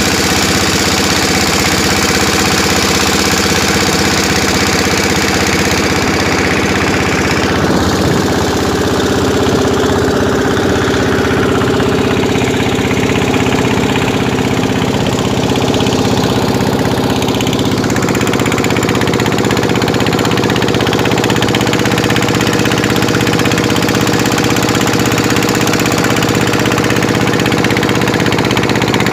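A pompong's engine running steadily while the boat is underway, with a steady rush of water and wind over it.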